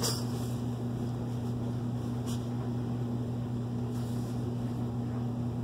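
Steady low machine hum, with a couple of faint brief clicks near the start and about two seconds in.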